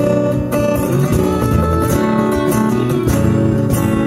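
Strummed acoustic guitar playing an instrumental passage of a country-pop song between sung lines, in a steady rhythm.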